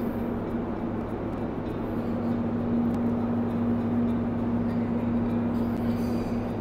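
Steady low machinery drone inside a VLCC crude oil tanker's pump room, with a constant hum that holds one pitch throughout.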